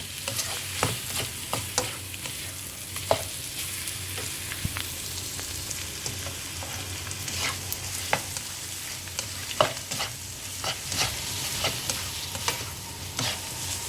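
Prawns, fish cake and egg sizzling in hot oil with sambal as they are stir-fried, the spatula scraping and clicking against the pan at irregular moments.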